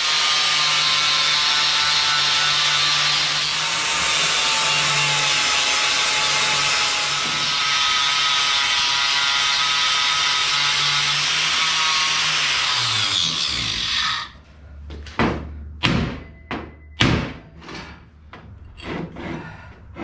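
Angle grinder running under load, cutting through steel to split a joined pair of locomotive cranks, for about thirteen seconds; the motor then winds down to a stop. Several sharp metal knocks follow.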